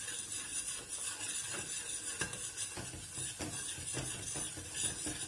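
A metal spoon scraping and knocking against a stainless steel pot as a thick flour, semolina and tomato-paste roux is stirred quickly to keep it from lumping. A faint steady hiss runs underneath.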